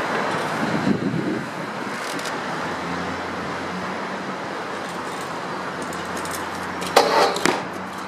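Steady road traffic noise from passing cars and buses, with a louder rumble about a second in. About seven seconds in comes a short, loud clatter of sharp, ringing strikes.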